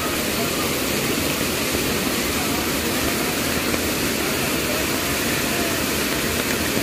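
Steady roar of a wide waterfall, water pouring over a rock ledge and crashing onto the rocks below.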